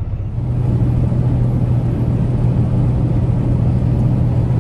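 Kenworth T880 truck's diesel engine and road noise heard inside the cab, a steady low drone that swells a little about half a second in and then holds.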